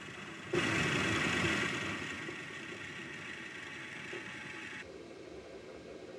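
A milling machine's table being moved by its motor, which starts suddenly about half a second in, is loudest at first, then eases and cuts off abruptly after about four seconds.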